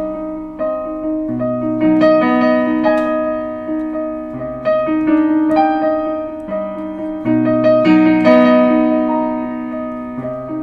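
Piano chords played slowly, stepping between chords a half step apart while one high note is held through each change. This is the common-tone half-step move, such as C minor to B major sharing E flat, that he calls the Hollywood sound.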